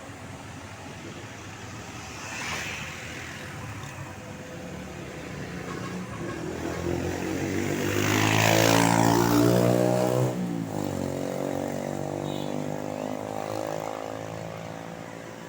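A bus drives past close by. Its engine and tyre noise build up slowly, and the engine note drops in pitch as it goes by about ten seconds in, then fades away.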